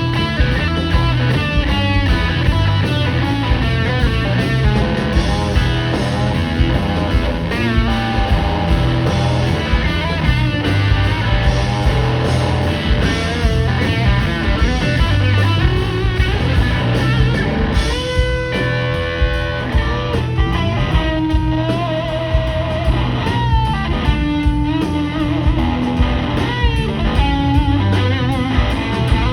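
Live blues-rock band playing: electric guitar lead lines with bent, wavering notes over bass and drums.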